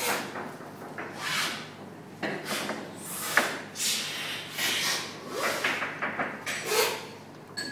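Several coffee cuppers slurping coffee hard off cupping spoons, a quick sucking slurp that sprays the coffee across the palate for tasting. The hissy slurps come again and again, overlapping, about once a second, with one sharp click about a third of the way in.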